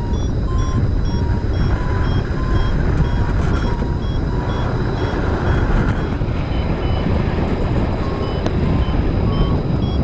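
Strong wind rushing and buffeting on the microphone during a paraglider flight, with a variometer beeping in short tones about every half second, the audio signal that the glider is climbing. The beeps stop for a few seconds in the middle and then start again.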